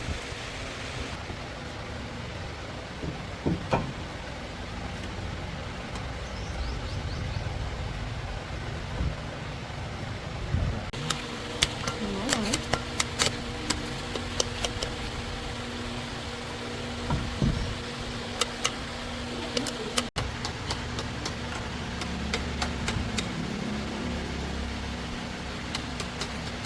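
An engine runs steadily at idle, with scattered sharp clicks and knocks over it, most of them in the second half.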